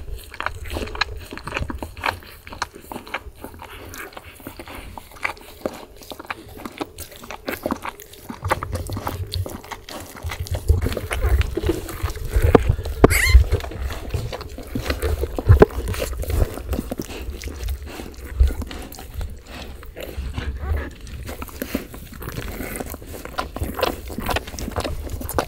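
A Siberian husky mother licking and nuzzling her newborn puppies: wet licking and snuffling with many small clicks over dull low bumps, louder from about ten seconds in.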